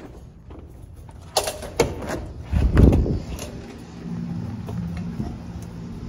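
A door's latch or push bar clacks twice, then a heavy thud comes about a second later as the door is passed through. After that a low steady hum sets in.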